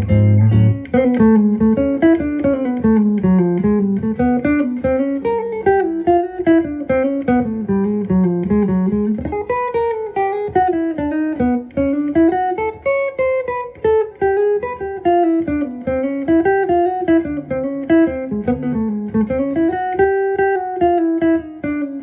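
1966 Gibson ES-175 hollow-body archtop electric guitar played solo in flowing melodic runs, often two or three notes moving together, rising and falling.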